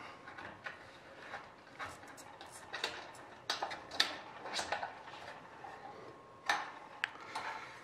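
Small C-clamps being screwed down and handled against a sheet-aluminium flap spar: scattered light metal clicks and taps, a dozen or so at uneven intervals, with faint rubbing between.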